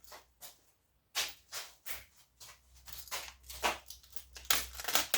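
Scrap metal and copper wire being handled and pulled apart by hand: an irregular string of short scrapes and clicks, sparse at first and busier and louder towards the end.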